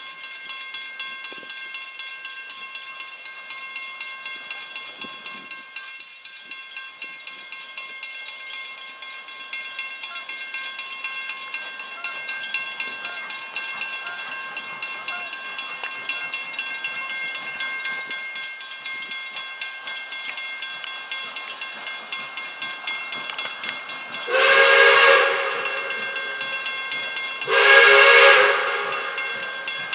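Grade-crossing bell ringing steadily as the Pere Marquette 1225 steam locomotive approaches tender first, the hiss of its steam growing louder. About 24 seconds in, its steam whistle sounds two long blasts, the loudest sounds, the opening of the long-long-short-long grade-crossing signal.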